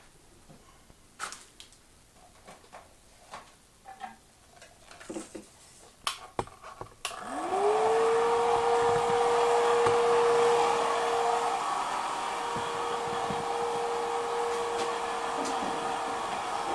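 Light clicks and knocks of handling, then about seven seconds in a hand-held electric blower switches on: its motor whine rises quickly to a steady pitch over a loud rush of air, and it keeps running.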